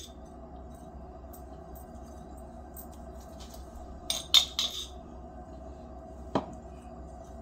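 Metal spoon clinking against a small glass jar of oil and seasoning as it is scooped out: three quick clinks about four seconds in and a single one about six seconds in, over a steady low hum.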